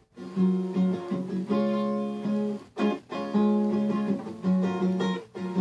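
Acoustic guitar being played alone, ringing chords with brief breaks about three seconds in and again near the end.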